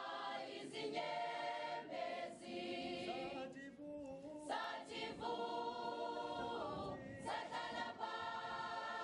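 A choir of many voices singing together in long held notes that change pitch every second or two, with short breaks between phrases.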